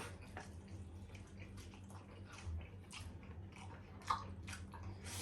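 Close-up eating sounds: chewing on saucy spare ribs, with scattered short wet mouth clicks and smacks over a steady low hum.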